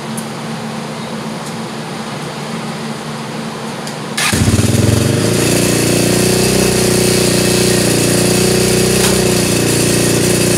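The 2005 Yamaha Raptor 660's single-cylinder four-stroke engine comes in suddenly about four seconds in, then runs loud and steady.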